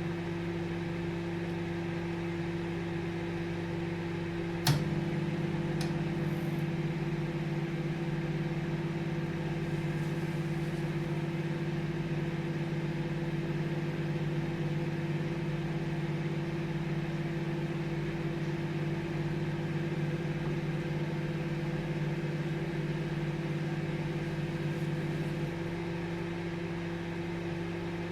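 Microwave oven running with a steady hum and whir. About five seconds in there is a sharp click, after which the low hum grows stronger for about twenty seconds before easing back near the end.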